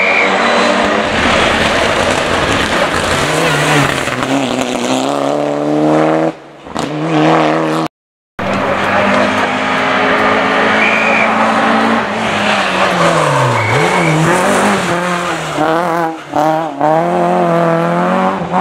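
Rally cars at full throttle on a hillclimb stage, the engine note climbing and dropping sharply with each gearshift and lift for the bends. After a brief break about eight seconds in, a second car comes up through the corners toward the listener, its revs rising and falling several times.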